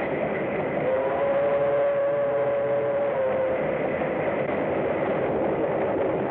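Steam locomotive running at speed: a steady rushing rumble, with its whistle sounded about a second in, held for about two seconds and sagging slightly in pitch as it ends.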